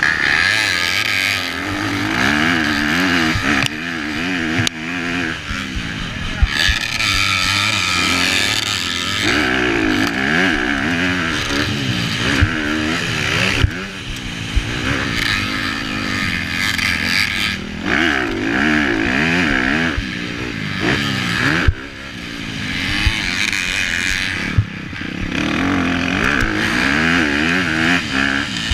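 Onboard sound of a Honda CRF250R four-stroke motocross bike racing: the engine revs up and down over and over as the rider accelerates, shifts and backs off for the turns, with sudden drops when the throttle closes and a few sharp knocks.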